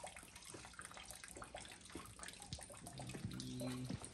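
Water trickling and splashing steadily, a faint running sound full of small drips. About three seconds in, a low steady hum sounds for about a second over it.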